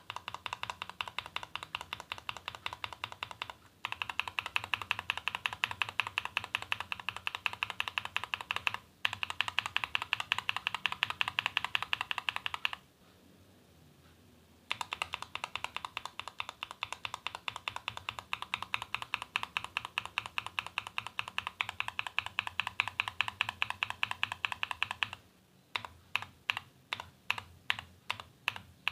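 Typing on a mechanical keyboard fitted with stock tactile switches. Fast keystroke clatter comes in several runs with short breaks and a pause of about two seconds midway. Near the end it gives way to slower single key presses, about three a second.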